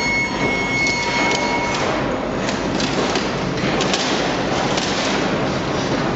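Heavy machinery running with a continuous rumble and metallic clatter and knocks, and a thin high squeal over the first couple of seconds.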